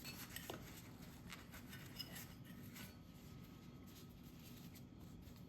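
Faint, light scraping and small clicks of a hand tool picking excess Loctite out of a freshly installed brass spark plug insert in a motorcycle cylinder head.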